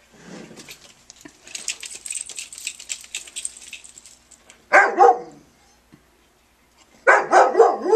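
A dog barks loudly once about halfway through, then several quick barks near the end, after a few seconds of rattling, spattering noise.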